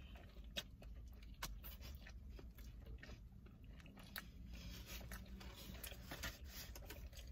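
A person biting and chewing food close to the microphone: scattered small clicks over a low steady hum.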